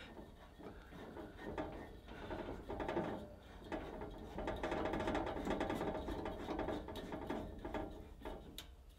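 Small green propane cylinder being screwed onto a griddle's regulator: metal threads grinding with fine, rapid ticks, steady for several seconds.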